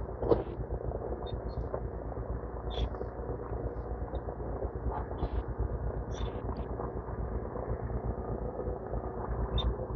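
Demolition diggers' diesel engines running with a steady hum, and wind rumbling on the microphone. A few short high clinks or chirps come through, with one brief louder knock just after the start.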